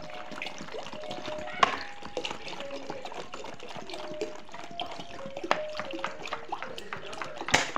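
Water pouring from a plastic bottle into an empty stainless steel pot: a steady splashing stream with short glugging tones, broken by a couple of sharp clicks.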